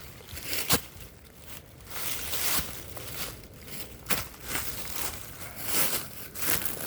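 A hiker's footsteps and body moving through leaf litter and brush: irregular rustling, crunching and crackling, with several sharper snaps.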